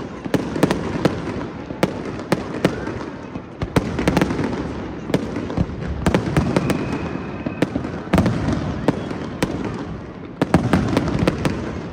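Fireworks going off: a rapid, irregular run of sharp bangs and cracks over a continuous rumble.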